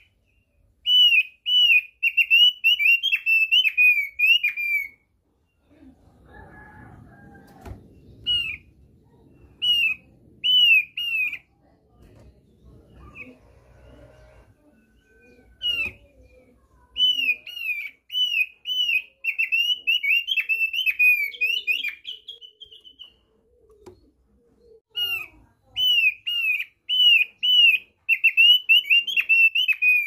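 Thick-billed opior (thick-billed white-eye) singing in phrases of short, bright arching whistled notes, about two a second, with a few seconds' pause in the middle. During the pause there is faint low rustling.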